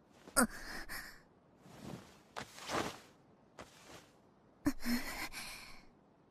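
A young woman's voice gasping and breathing out heavily, as from exertion: a sharp gasp about half a second in and another near five seconds, each trailing off into a breathy sigh, with softer exhalations between.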